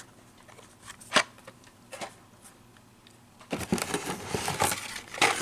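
Carded Hot Wheels cars in plastic blister packs being handled: a few light clicks and taps, then from about three and a half seconds in a busier spell of plastic and cardboard rustling and clacking.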